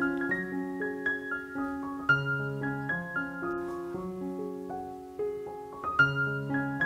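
Background piano music: a melody of held notes over chords.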